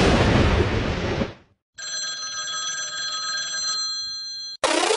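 Edited outro sound effects. A noisy burst lasts about a second, then after a short gap comes a steady ringing of several pitches at once, like a telephone bell, for about three seconds. Near the end, electronic music with sweeping rising-and-falling tones begins.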